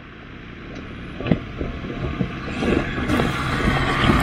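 Off-road 4x4 vehicle driving over rough ground: a low engine hum under road and wind noise, with scattered knocks and rattles, growing steadily louder.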